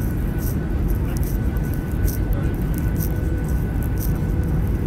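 Steady roar of a Ryanair Boeing 737's engines and rushing air, heard from inside the cabin as the airliner descends low on its landing approach, with a faint steady whine running through it.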